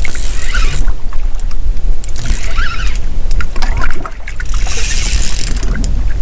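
Small boat under way: a steady low rumble with wind on the microphone, and a rushing hiss of water that swells about every two seconds.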